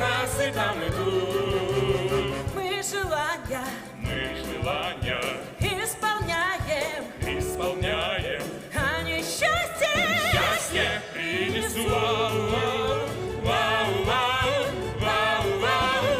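Musical-theatre song: voices singing with strong vibrato over instrumental accompaniment.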